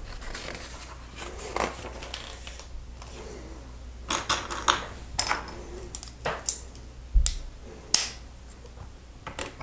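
Plastic Lego pieces clicking and clattering as they are handled, picked from a loose pile and pressed onto the build. A scattering of sharp separate clicks, with a quick cluster around four to five seconds in.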